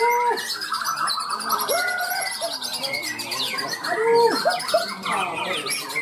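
Bornean white-crowned shama singing: repeated low, arched whistled notes mixed with rapid, higher chattering phrases. Other songbirds sing over it at the same time.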